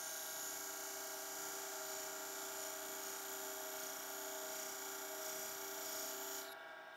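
Wood lathe running with a steady hum and hiss as a spindle gouge ground flat into a beading tool scrapes beads into the end of a spinning wooden spindle. The sound cuts off abruptly shortly before the end.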